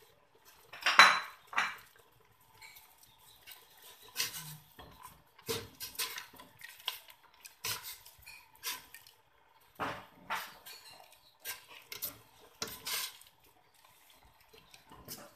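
Metal ladle clinking and scraping against the inside of a stainless-steel stockpot while stirring soup, in irregular knocks, the loudest about a second in.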